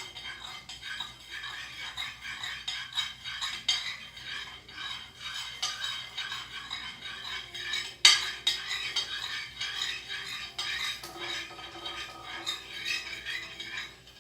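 A spoon stirring and scraping against a bowl, mixing the glue-based slime, in a fast, uneven run of scrapes and clicks. There is one sharp knock about eight seconds in.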